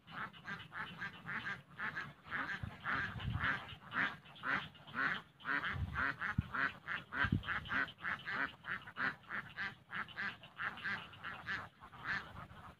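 Animal calls repeated rapidly over and over, about three a second, with a few low thuds underneath.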